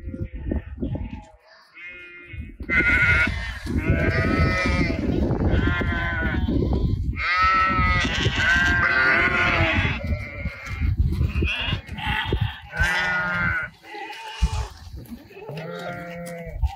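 A flock of sheep bleating, many wavering calls overlapping, thickest from about three to ten seconds in, over a low rumble.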